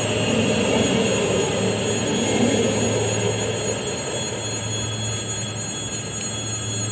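Aeroexpress ESh2 Stadler KISS double-deck electric train running past, its wheels rolling over the rails as the last cars go by. The rolling noise fades from about three and a half seconds in as the train pulls away, leaving a steady hum.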